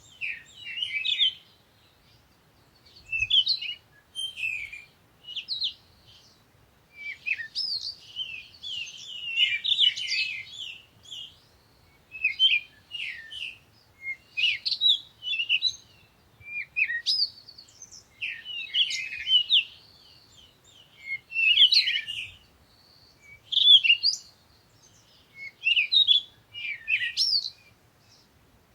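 Songbirds chirping and singing in a forest: short phrases of quick high chirps and trills come every second or two, with brief pauses between them.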